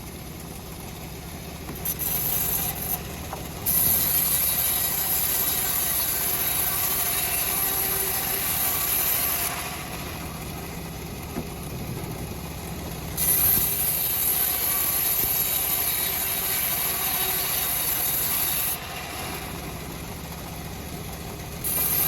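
Homemade engine-driven band sawmill cutting a teak log. The engine runs steadily, and the blade's loud hissing cut comes in twice for about five or six seconds each time, with a third pass just starting at the end.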